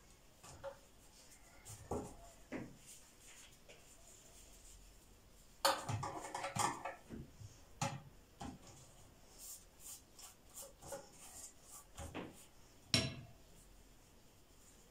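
Handling galash (phyllo) sheets in a baking dish while greasing them with ghee: scattered light knocks, clinks and rustles. The stretch about six seconds in is the busiest, and a sharper knock comes about thirteen seconds in.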